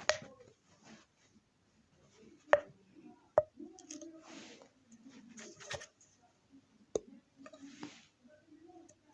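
Three sharp clicks, about two and a half, three and a half and seven seconds in, among faint muffled sounds and short soft hisses in a small room.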